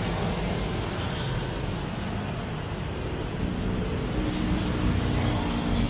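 Road traffic: motorcycles and cars passing, a steady hum of engines and tyres, with a low engine drone joining about halfway.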